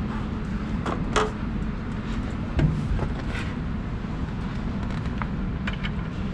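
Small metal clicks and taps from handling a float-valve rod and its fittings, a few scattered single ones and a quick cluster near the end, over a steady low rumble.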